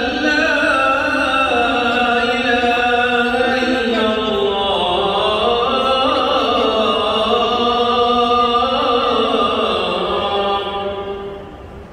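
A single voice chanting in long held notes that slide slowly up and down in pitch, fading away near the end.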